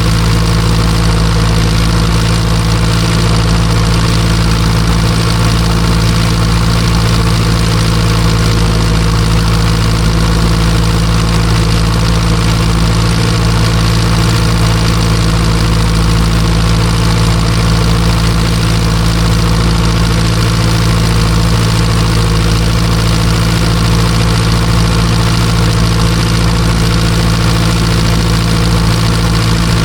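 Ursus C-360 tractor's three-cylinder diesel engine running steadily at a constant speed.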